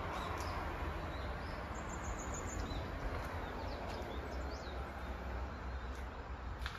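Outdoor ambience: a steady hiss and low rumble, with birds chirping faintly several times in the middle.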